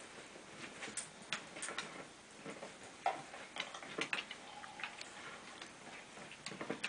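Basenji gnawing and chewing, making irregular faint clicks and crunches a few times a second.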